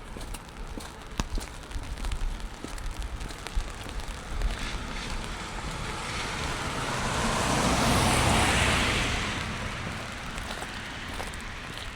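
A car passing on a wet street, its tyre hiss swelling to a peak about two-thirds of the way through and fading away, over steady rain pattering with scattered drips.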